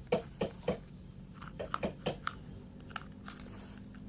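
Glue and liquid detergent slime being mixed: a run of short, irregular sticky clicks and smacks.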